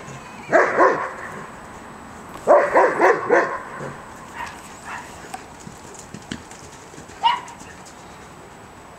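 German shepherd barking: two barks about half a second in, a quick run of four barks a couple of seconds later, and one short, higher rising yelp near the end.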